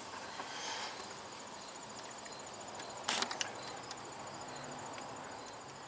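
Crickets chirping in a fast, even pulse in the background. There is a short clink about three seconds in from the hand work at the starter's cable terminal.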